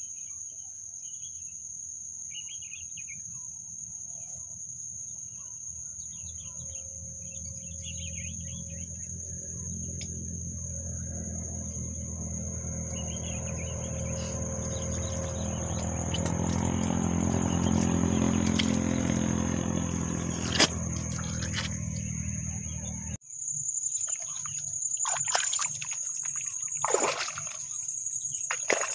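Insects keep up a steady high-pitched buzz, with a few bird chirps in the first seconds. A distant motor's low drone grows louder and then stops abruptly about two-thirds of the way through. After that come squelching, splashing footsteps in soft wet mud.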